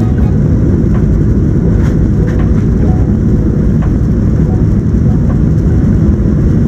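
Steady, loud low rumble of cabin noise inside a Boeing 737-700 airliner.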